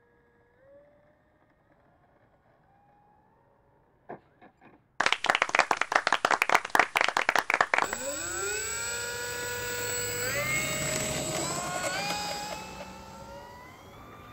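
Electric motor and propeller of a Dynam F6F Hellcat RC plane. A faint whine comes first. About five seconds in there is a loud, rapid clattering that lasts nearly three seconds. Then the motor's whine rises in pitch as it spools up, steps higher twice and fades near the end.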